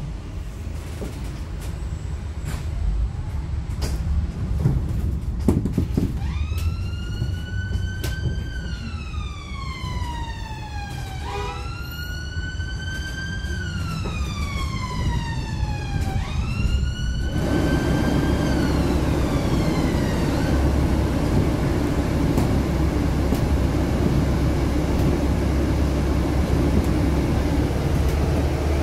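An emergency vehicle's siren wails in slow rising-and-falling sweeps, about three of them, from about six seconds in, fading out after about twenty seconds. Under it runs a steady rumble of bus and street traffic, which gets suddenly louder about seventeen seconds in.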